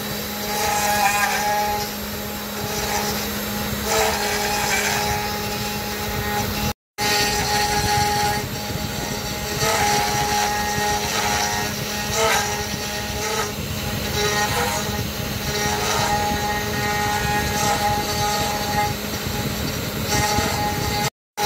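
Small hobby CNC router carving a relief into a wooden board. The spindle motor runs with a steady hum while the end mill chews through the wood, and the stepper motors give short whining tones that change pitch and start and stop as the axes move.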